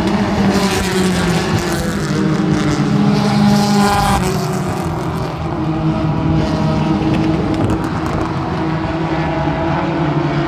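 Engines of front-wheel-drive stock race cars running around a short oval, several engine notes layered together. One note climbs in pitch from about two seconds in and falls away at about four seconds.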